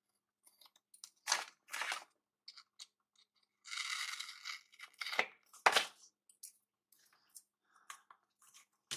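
Planner stickers and paper being handled: light rustles and taps, with a longer peel-like rip of about a second around four seconds in and a couple of sharper clicks right after it.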